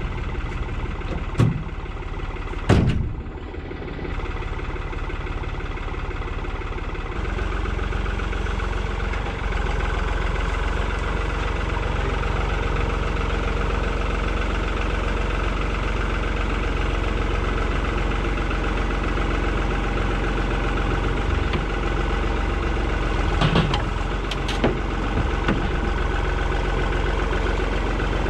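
Compact tractor engine running as the tractor drives up, getting louder about seven seconds in, with a few sharp knocks near the start and again about 24 seconds in.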